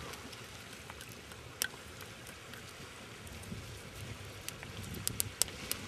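Campfire crackling: scattered sharp pops, one about a second and a half in and a quick run of several near the end.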